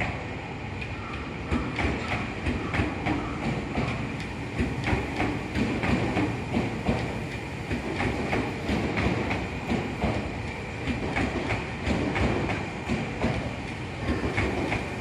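Tokyu 5050 series 4000-subseries electric train passing at low speed, its wheels clacking over rail joints, with a steady high tone underneath.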